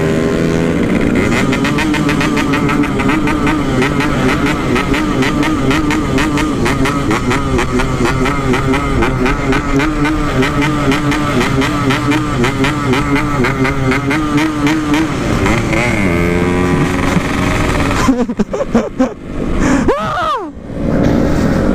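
Yamaha RX King's two-stroke single-cylinder engine, with a standard-style packed exhaust, running hard under steady throttle while riding at speed. About 18 seconds in the throttle is eased off and blipped, and the note drops and rises again.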